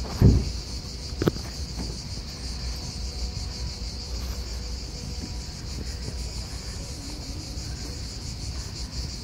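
Cicadas singing steadily in the street trees, a continuous high, slightly pulsing buzz, over a low rumble. A thump just after the start and a click about a second in stand out above it.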